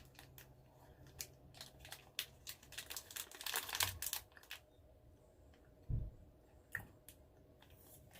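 Plastic snack wrapper crinkling and rustling as a chocolate bar is unwrapped from its tray, busiest around three and a half to four seconds, then a dull thump about six seconds in and a few faint clicks.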